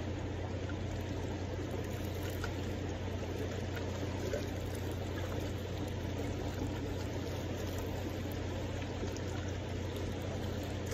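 Steady rushing of a fast-flowing river, an even wash with a constant low rumble underneath.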